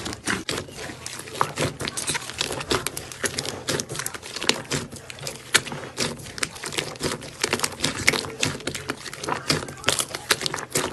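Slime being squeezed and pressed by hand, making a dense, irregular run of sticky clicks, crackles and small pops.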